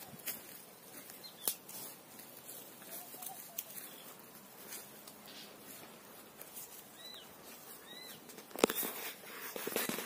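Scattered rustling and crackling of leaves and twigs close to the microphone as someone moves among sweet lime trees, louder in a burst near the end. A couple of short, faint bird chirps come about seven and eight seconds in.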